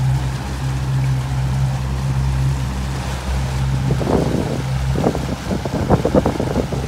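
Motorboat engine running at a steady cruise, a low even hum, with water rushing past the hull and wind on the microphone. Irregular louder, choppy noise comes over it from about four seconds in.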